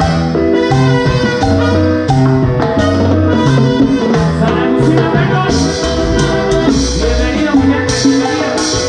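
Live Latin dance band playing: timbales and cymbal struck with sticks in a steady beat over trumpets and bass. The cymbal strikes get brighter and more frequent in the second half.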